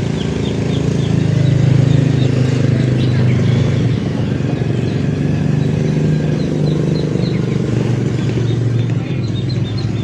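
A small engine running steadily at a constant speed, with birds chirping in short repeated notes over it, more often in the second half.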